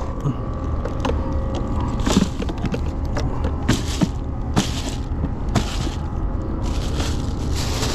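A plastic cooler box is opened and its contents handled: a few sharp knocks and plastic-bag rustling over a steady low rumble.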